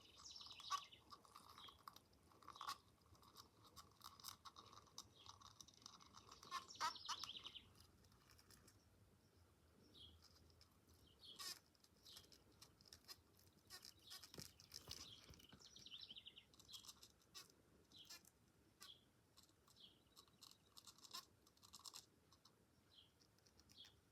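A bee buzzing at a window pane, a steady buzz for about the first seven seconds, then shorter, broken buzzes with light ticks in between.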